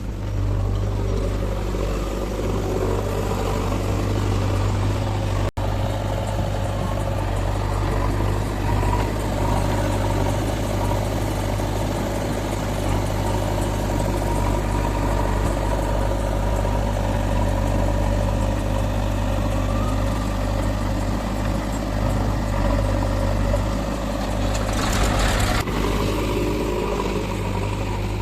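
Heavy diesel machinery engine running steadily with a low drone and a steady higher whine. The sound cuts out for an instant about five seconds in, and a brief louder rush comes near the end.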